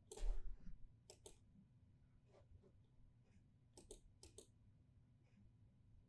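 Faint clicks of a computer mouse and keyboard as code is selected and run: a dozen or so short sharp clicks, several in quick pairs. A short louder rustle with a thump comes right at the start.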